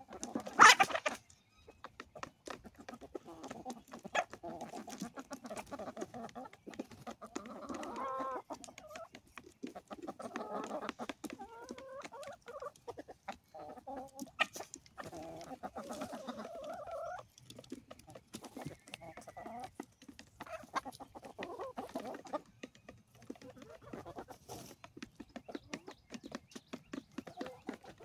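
A flock of chickens clucking steadily in short, broken calls as they feed on cracked corn, with many quick taps of beaks pecking. There is a loud, sudden burst about a second in.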